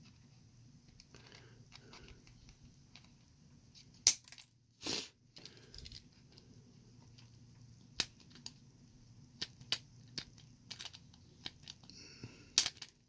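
Hand snips cutting through a small plastic model chassis: a few sharp snaps scattered through, the loudest about four seconds in, followed by a short crunch.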